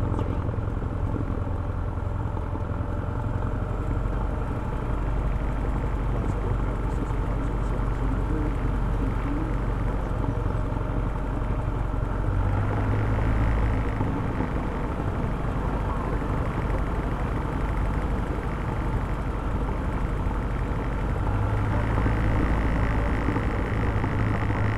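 Single-engine light aircraft's piston engine and propeller running at taxi power, a steady drone with a strong low hum. It grows louder briefly about halfway through and again a few seconds before the end.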